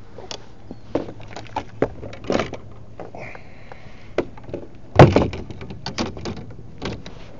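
Fishing rods and reels knocking and clattering against a small boat's molded plastic deck and rod holders as they are handled: a string of knocks and clicks, with one loud thump about five seconds in.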